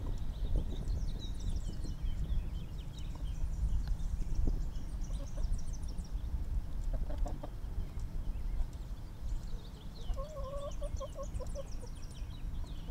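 Chickens clucking as they feed, with a run of quick low clucks about ten seconds in, and spells of high twittering chirps now and then over a steady low rumble.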